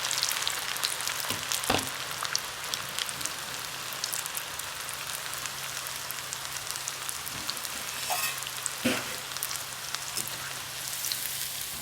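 Battered bread pakoda pieces deep-frying in hot oil, with a steady sizzle full of small crackling pops. A few sharp knocks come near 2 s and again around 8 to 9 s.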